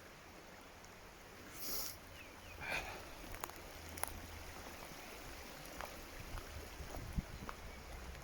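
Faint rustling with a few scattered sharp clicks and ticks over a steady low rumble: a short hiss a little under two seconds in, then a louder rustle about a second later.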